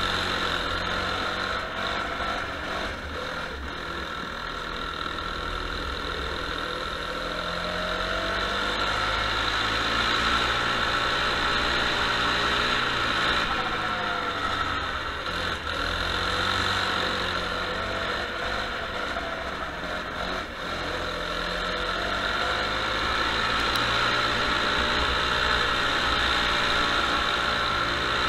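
Go-kart engine running hard, its pitch rising and falling again and again as the kart accelerates and lifts off around the corners of a wet track.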